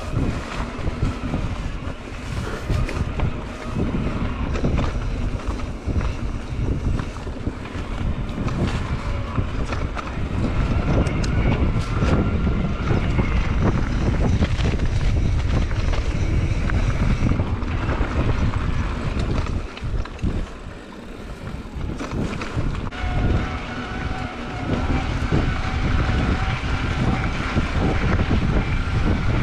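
Wind buffeting the microphone over the rumble of a mountain bike rolling along a dirt trail, easing off briefly about two-thirds of the way through.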